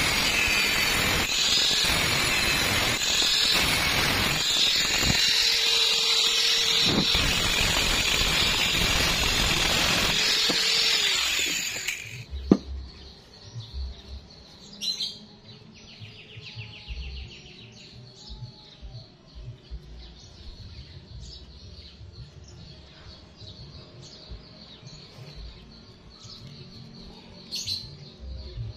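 Angle grinder with a thin cut-off disc cutting through a round metal pipe, a loud steady grinding with the disc's pitch wavering under load. It stops about twelve seconds in with a sharp click, leaving faint bird chirps.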